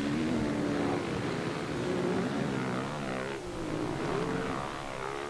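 Motocross bike engines on the race track revving, their pitch rising and falling repeatedly as they accelerate and back off, with more than one bike heard at once.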